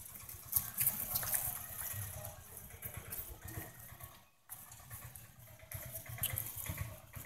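Faint steady rushing of running water, with scattered small clicks. The sound drops out briefly about four seconds in.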